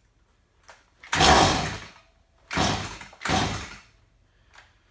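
Stihl MS170 chainsaw being pull-started on choke: three hard pulls of the recoil starter cord, the first about a second in, each turning the small two-stroke engine over briefly without it catching. Some bar-and-chain oil is still in the carburetor.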